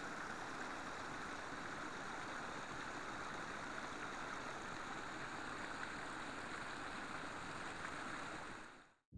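Small forest brook running over low rocky steps, a steady rush of water that fades out near the end.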